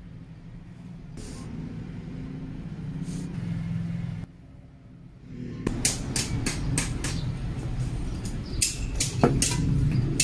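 A steady low machine hum that cuts off about four seconds in. After a short lull comes a run of sharp clicks and knocks over a low rumble.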